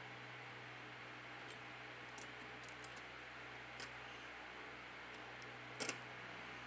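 Small faint clicks and taps as a phone's main circuit board is fitted and pressed into its plastic middle frame, with a sharper double click about six seconds in, over a steady low hiss and hum.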